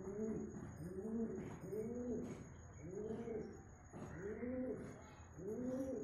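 Domestic pigeon courtship cooing: a series of low coos, each rising and falling, about one every three-quarters of a second.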